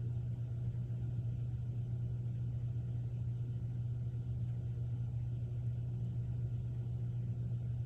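A steady low hum with faint background noise, unchanging throughout and with no other events.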